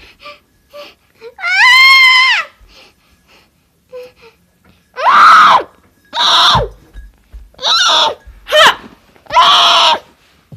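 A child's voice wailing and screaming in loud, drawn-out cries: one long cry early, then a run of five more after a pause.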